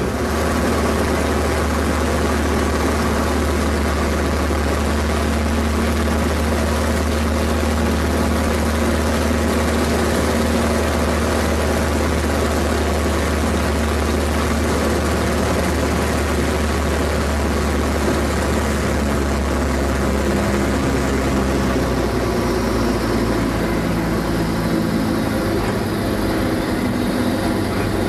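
Pitts Special biplane's engine and propeller running steadily, heard from inside the open cockpit with wind rush over it. About three-quarters of the way through, the engine note changes and drops.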